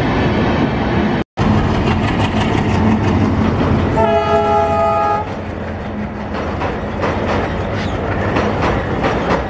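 Tejas Express passenger coaches rolling past at speed with a steady rumble and wheel clatter on the rails. A train horn sounds once for about a second, some four seconds in. The sound cuts out briefly about a second in.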